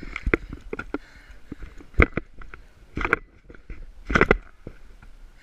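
Footsteps crunching through dry leaves and undergrowth, with brush rustling. Three louder crunches come about a second apart near the middle and end.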